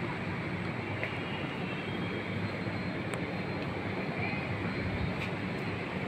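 Steady background rumble and hiss with a few faint clicks.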